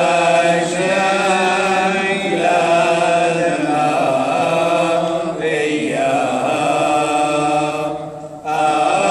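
A group of men and women chanting a liturgical prayer together from prayer books, in a steady, drone-like unison recitation. They pause for breath briefly about eight seconds in, then carry on.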